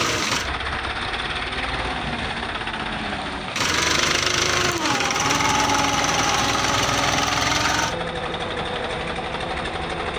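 Mahindra 275 DI tractor's diesel engine running as it pulls a trailer through deep mud, its pitch rising and dipping back briefly about four seconds in.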